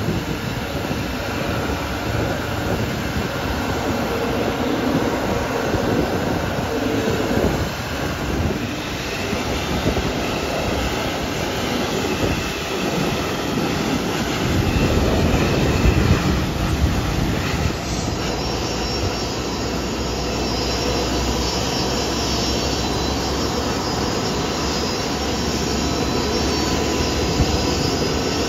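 Jet airliner's turbofan engines running, a steady rush of engine noise. About two-thirds of the way in, a high whine of several steady tones joins it.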